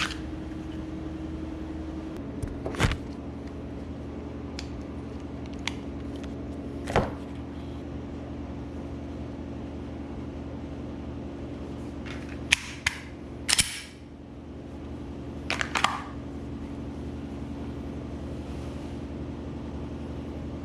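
Steady low room hum that drops slightly in pitch about two seconds in, with a few brief rustles and sharp clicks of handling scattered through, the loudest a cluster of clicks near the middle.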